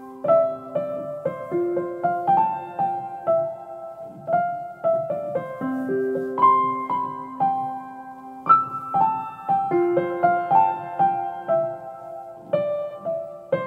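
Background piano music: a gentle melody of single struck notes, each ringing and fading before the next.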